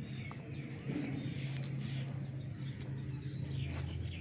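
Birds chirping faintly, short high twitters, over a steady low hum that drops to a deeper pitch about three and a half seconds in.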